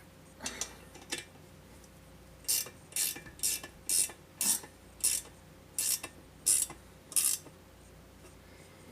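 Hand-tool work on an ATV axle assembly: a couple of short mechanical strokes, then a run of about ten more at roughly two a second that stops near the end.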